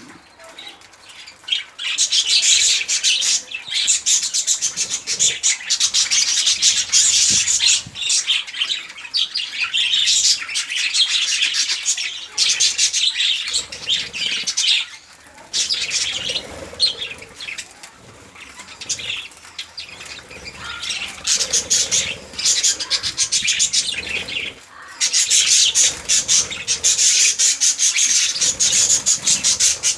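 Budgerigars chattering and warbling in long runs of rapid chirps, broken by a couple of brief pauses.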